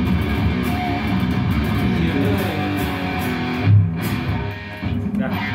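Jackson electric guitar played with a heavy metal tone, chugging low riffs. A heavy low chug comes near four seconds in, followed by a short break before the playing picks up again.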